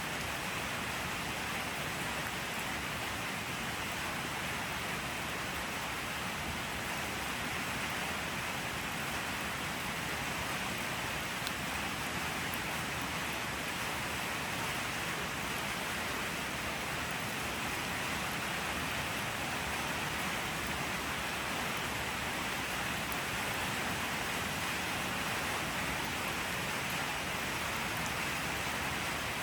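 Steady rainfall, an even hiss of falling rain with no distinct drops or thunder standing out.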